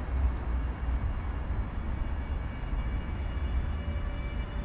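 Electric locomotive hauling an Intercity train slowly into a station, with a low rumble throughout. From about halfway in, the locomotive's electrical whine of several high steady tones grows stronger.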